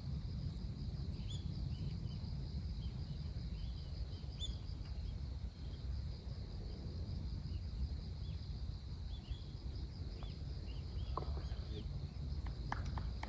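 Wind rumbling on the microphone, over a steady pulsing trill of insects and scattered short bird chirps. A few sharp clicks come near the end.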